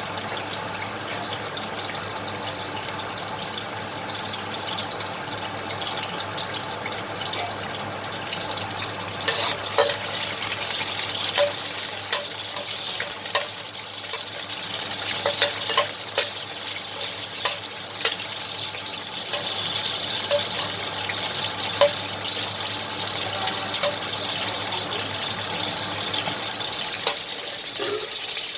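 Hot oil sizzling in a wok with lemongrass stalks and ginger frying in it. The hiss gets louder about nine seconds in, with scattered sharp pops and clicks.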